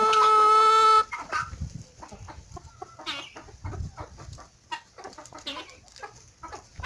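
A rooster's crow ending in a long, steady held note, which stops about a second in, followed by scattered clucking from a flock of chickens.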